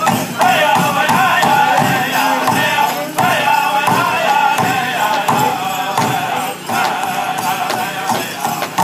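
Powwow drum group singing a men's chicken dance contest song: high, chanted voices over a steady beat on a big drum.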